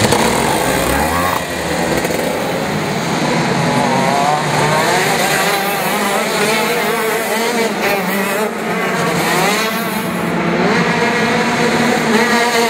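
KZ2 shifter kart's 125 cc two-stroke engine running hard at high revs, its pitch climbing and dropping several times as the kart accelerates.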